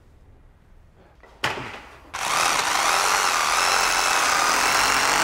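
Power drill boring into the ceiling overhead, drilling a hole for a lamp hook. It starts about two seconds in and runs steadily with a whine, after a single knock.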